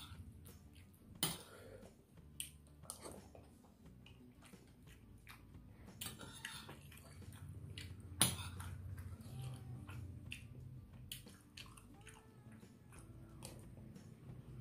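Close-miked chewing of rice and beef, with a metal spoon scraping and clinking on a plate; two sharper spoon clinks stand out, about a second in and about eight seconds in.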